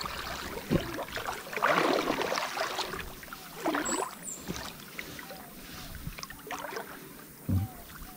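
River water sloshing and splashing close to the microphone in irregular surges.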